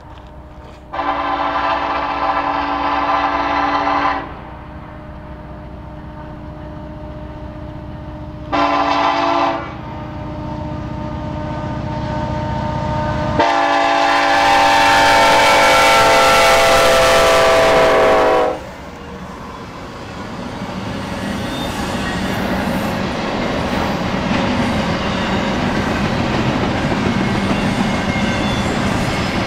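BNSF freight locomotive's air horn sounding three blasts: a long one, a short one, then a long loudest one as the train draws close. After it the locomotives and cars roll by with a steadily building rumble and wheel clatter.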